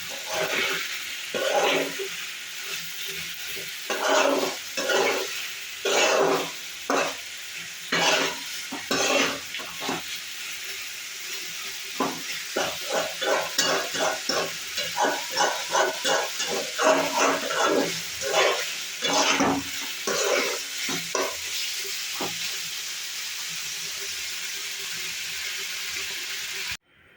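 Food sizzling in a hot pan while a spatula stirs and scrapes it, with irregular strokes at first and then a quicker run of stirring in the middle. The sizzle cuts off suddenly near the end.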